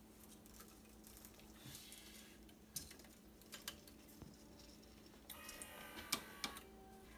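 Faint handling of a racket string on a stringing machine: a few light clicks and a short scraping rasp of string rubbing as it is pulled through and tensioned, about five seconds in.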